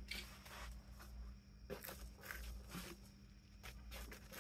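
Faint rustling and scattered light clicks of hands at work: a paper towel being handled, then rummaging in a cardboard box of differential locker parts. A faint steady hum runs underneath.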